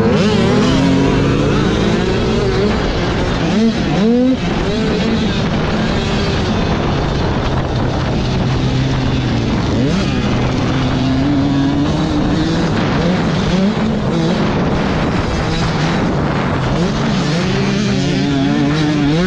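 Dirt bike engine being ridden hard, its pitch climbing and dropping as the rider works the throttle and gears, with a quick rev-up and drop about four seconds in. A steady rush of wind runs under it.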